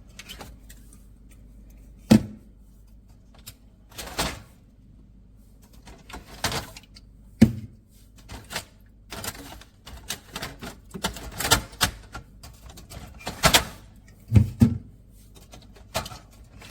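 Hard plastic parts of a fridge can organizer clacking and knocking as they are handled and fitted together: a string of irregular sharp clicks. The loudest come about two seconds in and at seven and a half seconds, and they come more often in the second half.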